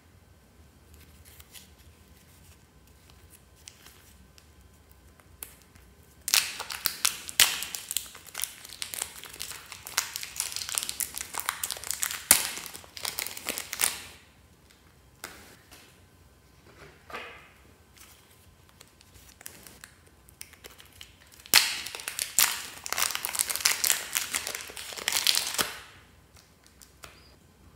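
Fluffy slime being squished and stretched by hand, giving dense crackling and popping in two bouts of several seconds each, with a few faint clicks between.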